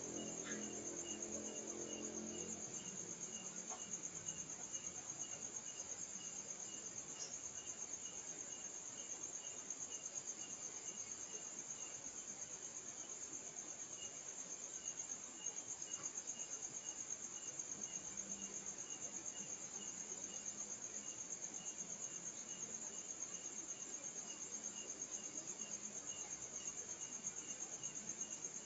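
Night insect chorus: crickets trilling steadily and high, with another insect chirping about twice a second. A low hum fades out in the first few seconds.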